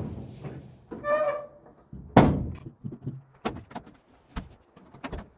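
Chevy Silverado tailgate thunking shut about two seconds in while it is tested on newly fitted striker bolts, followed by a few light clicks and knocks from the latch.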